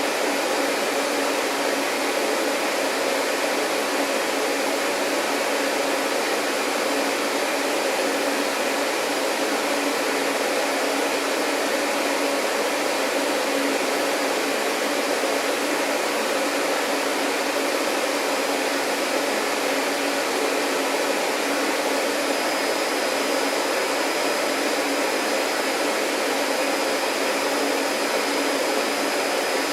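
Vacuum cleaner motor running steadily: an even rushing air noise with a steady hum under it. A faint high whine joins about two-thirds of the way through.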